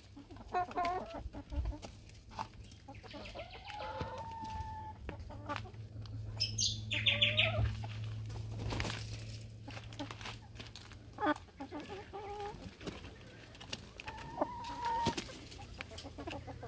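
Backyard hens clucking on and off, with short calls scattered here and there.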